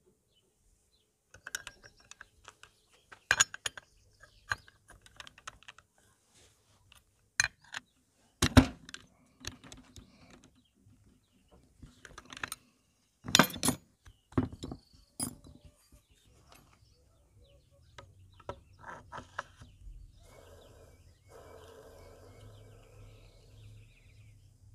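Steel tools clinking and clanking on a scooter clutch and torque-driver assembly: a holder tool and ring spanner knocking on the metal as its centre nut is worked, with two louder clanks about a third and halfway through. A faint low steady hum with a rasping noise comes in over the last few seconds.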